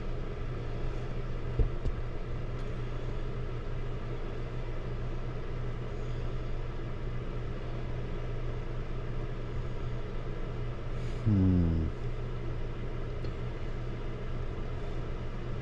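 Steady low hum and rumble of running machinery, with a brief louder sliding tone about eleven seconds in.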